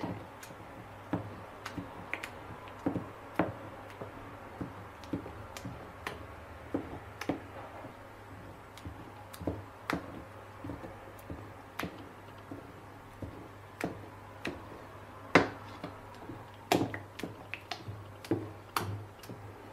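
Wooden spoon stirring thick tomato and pepper purée in a stainless steel bowl, knocking and clicking against the metal at irregular moments, about once or twice a second, with one louder knock partway through. A low steady hum runs underneath.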